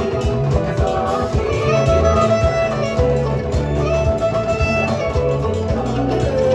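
Live band playing: guitar and keyboard over a steady bass line, with drum hits keeping the beat.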